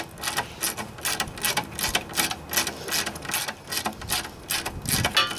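Ratchet driver with a T30 Torx bit clicking steadily as a Torx bolt is backed out, about four to five clicks a second.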